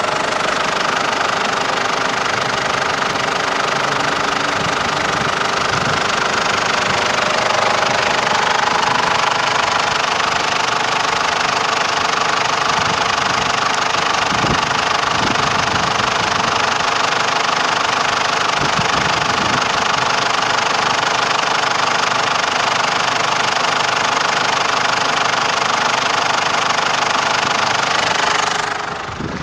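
2011 Ford Ranger's 3.0-litre four-cylinder turbo-diesel idling steadily, heard close up under the open bonnet; it drops in level near the end.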